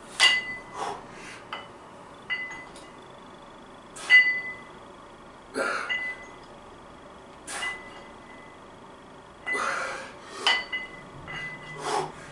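Iron plates on plate-loaded dumbbells clinking with a short ringing note, again and again, as they are picked up, raised and lowered in bent-over reverse flys. Forceful exhalations come between the clinks.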